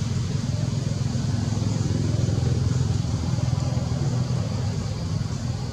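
Steady low rumble of a motor vehicle engine running, swelling slightly a couple of seconds in.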